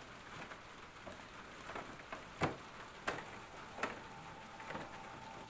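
Faint hiss with a handful of sharp ticks and knocks, irregularly spaced, the loudest about two and a half seconds in; a steady high tone comes in about four seconds in.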